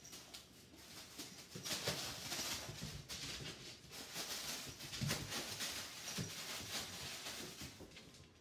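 Packaging rustling and crinkling: plastic wrap and packing paper handled as items are taken out and unwrapped, with a few soft knocks. It grows louder about two seconds in.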